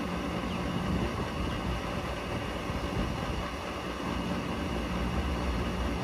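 Rooftop gas package unit's inducer draft motor running steadily after power-up, a steady mechanical hum with a rushing haze. This is the unit's pre-purge before the ignition attempt.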